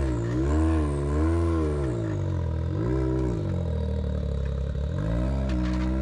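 Side-by-side UTV engine revving up and down in short throttle blips while rock crawling. It settles lower for a second or two after the middle, then picks up again near the end.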